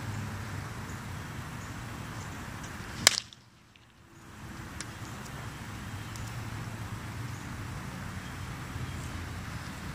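Wooden baseball bat hitting a pitched ball: one sharp crack about three seconds in, over steady background noise.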